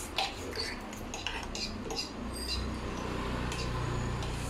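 Metal fork clinking and scraping against a dish in a quick run of short taps while noodles are eaten, some taps ringing briefly. A low steady hum sets in underneath about halfway through.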